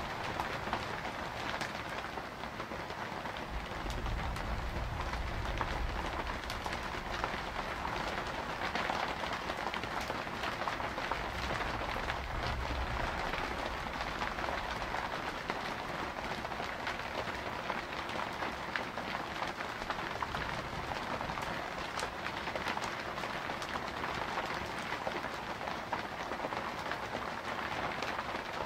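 Steady rainfall, with low rumbles of thunder swelling about four seconds in and again around twelve seconds.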